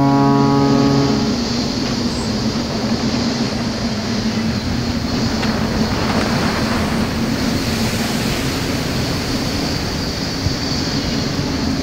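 A held synth chord from the intro logo fades out a little over a second in. Then comes the steady drone of a fishing trawler's engine with a constant low hum, under rushing wind and sea noise, heard from inside the wheelhouse as the boat ploughs through heavy seas.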